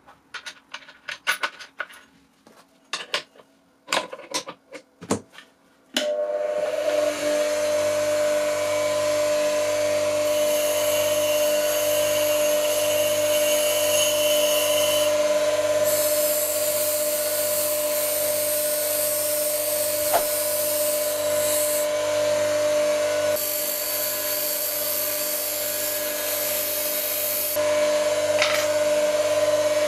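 Small metal clinks as the nut and washer go onto a bench grinder's spindle, then about six seconds in the grinder switches on and spins up to a steady motor hum and whine. The upper hiss brightens and fades several times as a thin metal pointer is held against the side of the spinning abrasive wheel, mounted on a homemade faceplate, to check that it runs true without wobble.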